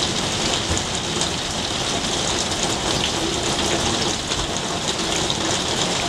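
Steady rain falling on a garden, with many separate drop hits among the even hiss.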